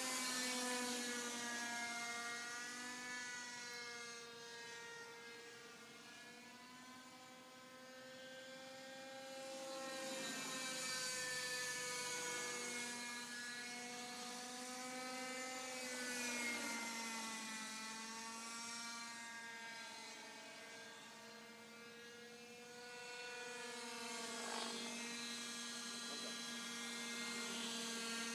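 Radio-controlled model helicopter flying overhead: a high whine from its motor and rotor blades, its pitch wavering and gliding up and down as it manoeuvres. It grows fainter and louder again as it moves away and comes back, dipping about a quarter of the way in and again about three quarters through.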